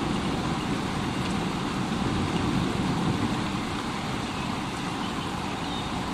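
Steady heavy rain: an even, dense wash of noise over a deep, continuous low rumble, with no single thunderclap.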